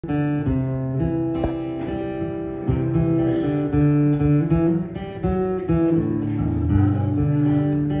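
Acoustic guitar played solo, an instrumental intro with no singing: ringing chords that change about every second.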